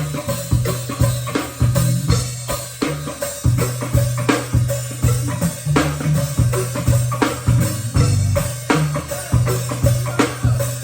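Live band playing a percussion-driven groove: a drum kit and hand percussion hitting in a steady rhythm over a pulsing bass line.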